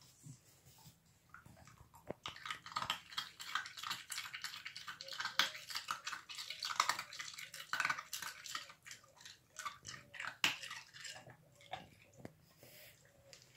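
Irish Terrier puppy crunching and chewing an ice cube: a dense run of sharp crackling crunches starting about two seconds in and easing off near the end.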